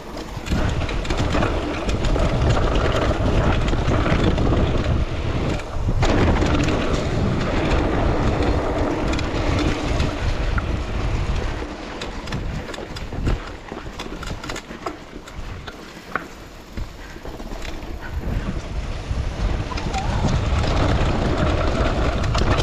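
Riding an enduro trail over rough ground: wind buffeting the microphone over the rattle and clatter of tyres and bike on the bumps, easing off for several seconds around the middle.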